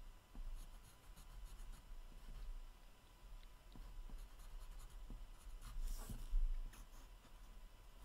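Pencil sketching on a sheet of paper: faint, irregular scratchy strokes, the loudest about six seconds in.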